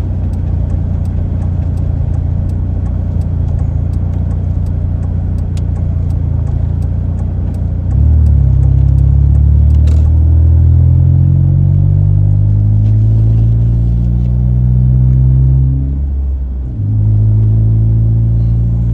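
Car engine and road noise while driving. About eight seconds in the engine pulls harder and its pitch climbs slowly. It drops briefly near the end, as at a gear change, then settles back to a steady drone.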